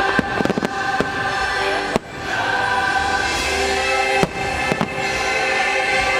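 Fireworks bursting in sharp bangs over a choral holiday show soundtrack: a quick run of bangs in the first second, then single bangs about two seconds in and twice more a little past four seconds.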